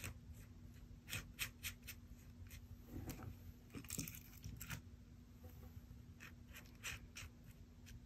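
Palette knife scraping crackle paste out of a nearly empty jar and spreading it over a plastic stencil: faint, short, irregular scrapes and clicks.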